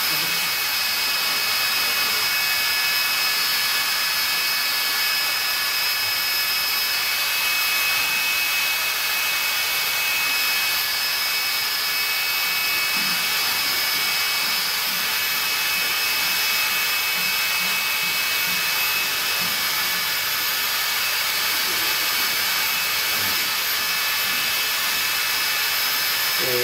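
Steady whine of electric machinery over an even hiss, with a few held high tones that shift slightly in pitch about a third of the way in.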